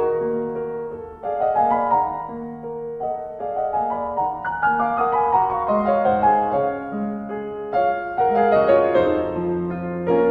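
Instrumental music led by piano, slow notes struck and left ringing over one another.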